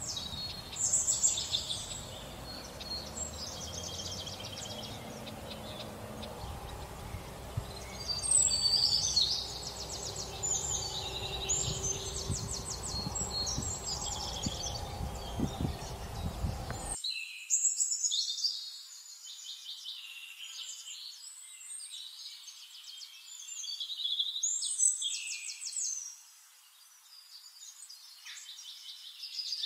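Nature recording of songbirds singing, with high chirps and fast trills in repeated phrases. Under the birds is a faint low background noise that cuts off abruptly just past the middle.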